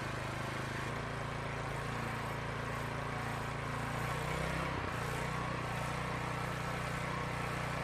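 Kohler small gasoline engine on a pressure washer running steadily at mid speed, then rising in pitch about halfway through as the speed control is moved to high speed, settling at a higher steady speed.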